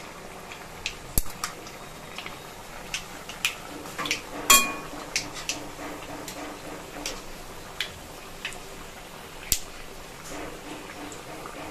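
Thekua (wheat-flour dough cakes) deep-frying in hot oil in a metal kadhai: a steady sizzle with scattered sharp pops and clicks. A perforated metal slotted spoon clinks against the pan several times, with one louder ringing clink about four and a half seconds in.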